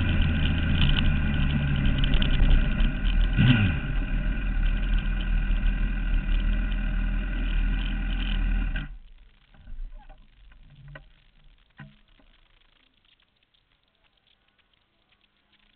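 Sport motorcycle engine running at low revs, with a brief dip and rise in pitch about three and a half seconds in. It is switched off about nine seconds in, leaving a few faint knocks and then near silence.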